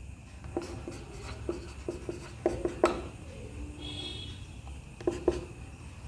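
Whiteboard marker writing on a whiteboard: a run of short scratchy strokes and taps through the first three seconds, then a pause, then a couple more strokes about five seconds in.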